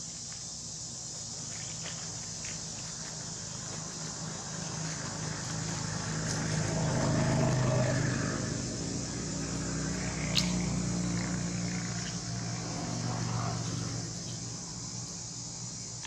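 A motor vehicle passing: its engine hum builds to a peak about halfway through, then fades away. A steady high buzz of insects continues underneath, and one sharp click comes about ten seconds in.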